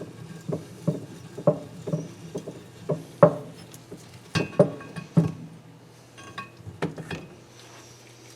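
A dozen or so sharp, irregularly spaced metallic clicks and clinks as valve-train parts and a valve spring compressor are handled on a Nissan KA24DE cylinder head. They thin out after about five seconds.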